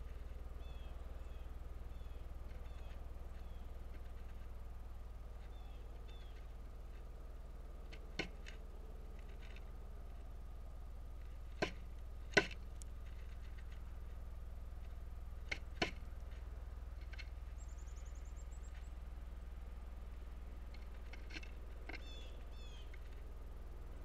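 A male pileated woodpecker's bill striking the peanut suet block and wooden platform feeder: about five sharp knocks through the middle, singly and in pairs, over a steady low hum.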